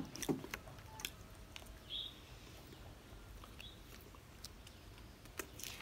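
Faint scattered clicks and crackles of a small plastic jelly cup being handled and its sealed lid peeled back, with a few ticks bunched near the end. One brief high squeak about two seconds in.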